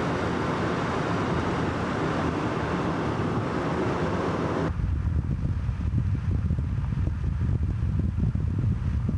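Steady rushing road and wind noise of a car travelling at high speed. About halfway through it changes suddenly to a low, fluttering rumble of wind buffeting the microphone.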